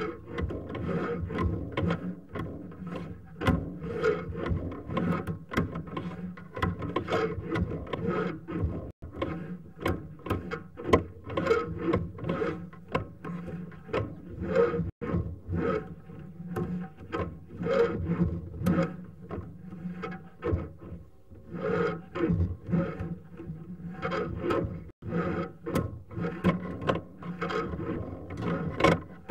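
Sewer inspection camera's push cable being pulled back through the line, with continuous irregular scraping, rubbing and rattling clicks.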